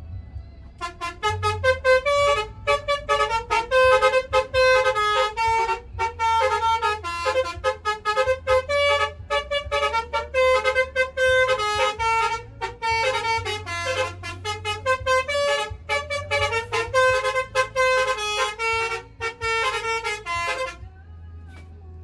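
Basuri multi-tone telolet air horn on a Mercedes-Benz OH1526 bus playing a long unbroken string of quick melodic phrases, note after note, for about twenty seconds. It starts about a second in and stops shortly before the end. A low engine hum runs underneath.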